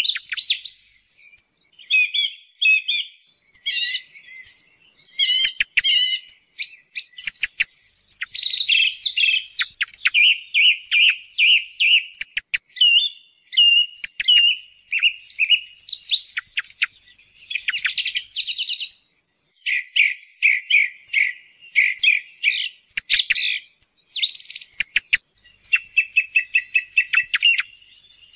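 Song thrush singing: a steady run of varied, clear whistled phrases, many of them made of one short note repeated several times in quick succession, with brief pauses between phrases.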